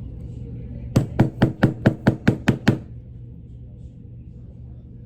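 A quick, even run of about nine sharp knocks or taps, roughly five a second, lasting under two seconds, over a steady low hum.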